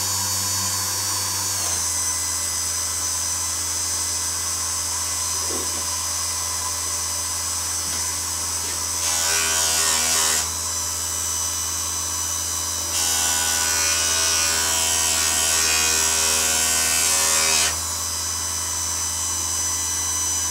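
Small variable-speed bench polisher's electric motor running steadily, its pitch shifting to a different speed about two seconds in. Twice, briefly around nine seconds in and again for about five seconds from thirteen seconds in, a metal piece is pressed against the spinning polishing wheel, adding a louder rubbing hiss over the motor.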